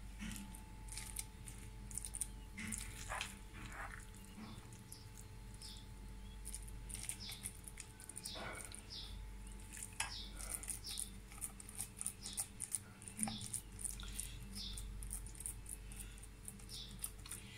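Steel spoon clinking and scraping against a steel bowl as keema filling is scooped and dropped onto a rolled-out paratha dough round, then soft patting as the filling is spread by hand. Faint, scattered small clicks over a low steady hum.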